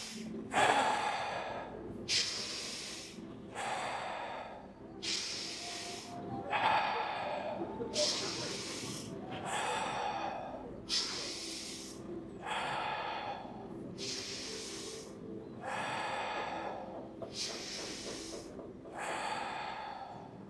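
A person doing rapid, forceful rhythmic breathing in a fire-breath exercise, a breath in and a hard breath out about every three seconds, each breath a rush of air.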